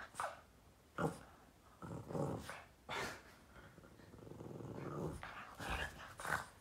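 Boston terrier growling in play, in a string of short growls about a second apart, with a longer growl building about four to five seconds in.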